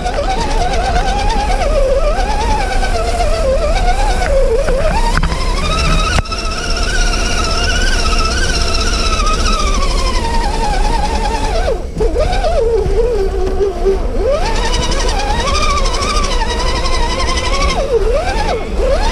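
Electric motor and gearbox whine of a 1/10 scale RC crawler truck, rising and falling in pitch as the throttle is worked, over a steady low rumble.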